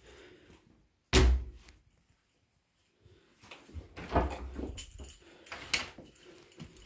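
A wardrobe door shut with a single loud bang about a second in, followed later by a run of softer irregular knocks and rustles.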